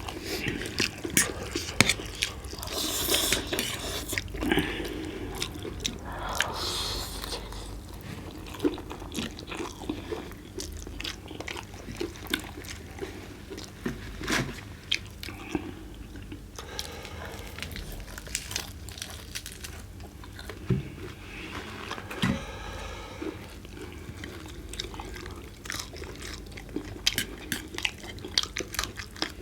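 Close-up eating sounds: roast chicken being bitten, chewed and crunched, with many small irregular clicks and crunches.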